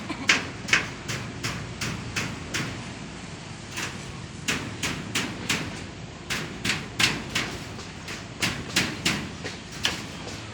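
Hammer blows struck in quick runs of about three a second, with short pauses between the runs.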